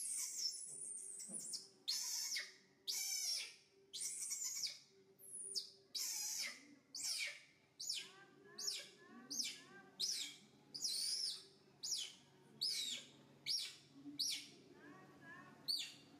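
Young macaque screaming over and over, a high, falling squeal about once a second, as it is held on its back and its limbs are rubbed and bent in a massage.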